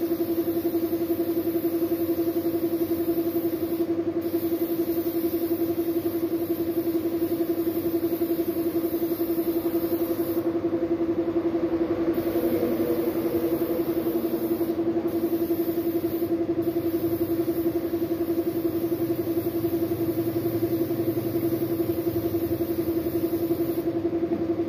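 Compressed-air spray gun hissing as it sprays matte black paint onto a motorcycle wheel rim, the hiss cutting out for about a second and a half around ten seconds in, twice briefly later, and stopping near the end as the trigger is released. Under it the air compressor runs with a steady hum.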